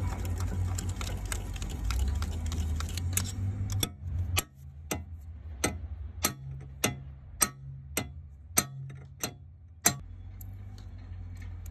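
About a dozen sharp metallic taps, roughly two a second, as a steel punch is struck against the piston of a wheel loader's bucket hydraulic cylinder on its threaded rod, tightening it. Before the taps, about four seconds of busy handling noise as the piston is worked by hand.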